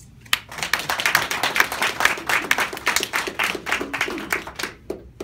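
Small indoor audience applauding. The clapping starts about half a second in and stops near the end.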